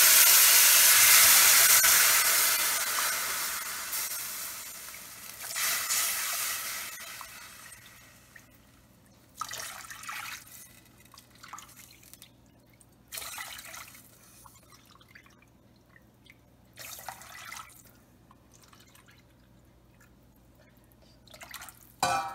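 Water poured into hot oil and fried spices in a pressure cooker, hissing loudly as it flashes to steam and dying away over several seconds. After that come five short splashes as more water is poured in from a cup.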